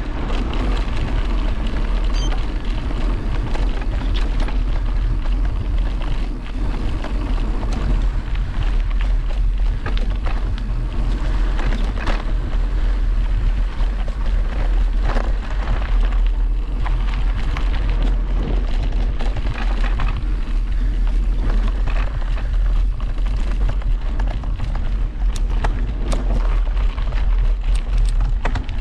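A mountain bike ridden along a dirt forest trail, with wind rumbling hard over the microphone and the bike giving sharp rattles and knocks over bumps now and then.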